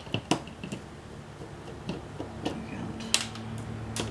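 Small metal and plastic clicks and taps from a screwdriver working on the screws and parts of a camcorder's tape mechanism, a handful of sharp separate clicks. A low steady hum comes in about halfway.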